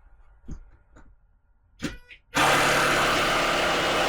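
A few light clicks, then a power drill starts sharply a little past halfway and runs steadily at full speed, driving a screw into timber.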